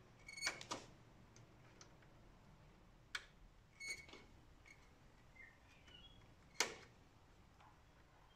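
About five small sharp clicks and taps of plastic connectors and cable clips being handled on a large-format scanner's circuit boards, spread out, the sharpest about two-thirds of the way in.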